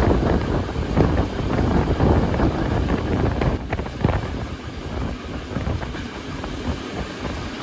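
Rolling noise of a steam-hauled passenger train heard from a carriage window, with wind buffeting the microphone and scattered clicks. The noise grows quieter as the train slows into a station.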